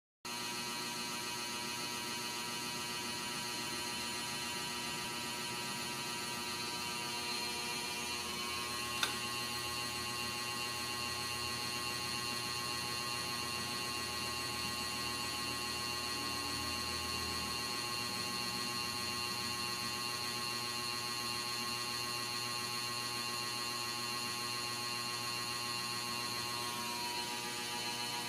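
Steady electrical hum with a buzzy, many-toned sound, unchanging in level, with a single sharp click about nine seconds in.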